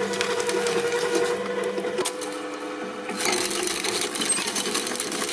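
Hydraulic press crushing an object: dense crackling and snapping over a steady hum, the crackling growing denser about three seconds in.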